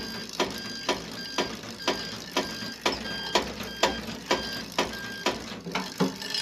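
Hoverboard motor controller beeping while the motors drive in reverse: short, evenly spaced beeps about twice a second, each with a sharp click.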